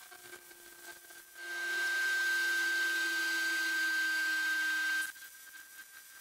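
Wire-feed welder arc crackling and hissing through one continuous weld bead of about three and a half seconds, starting about a second and a half in and cutting off sharply when the trigger is released. A steady high tone runs beneath it, and a few light clicks come before it.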